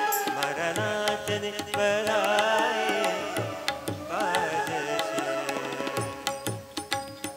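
Live devotional music: tabla keeping a steady rhythm under keyboard, with a wordless melody gliding over it.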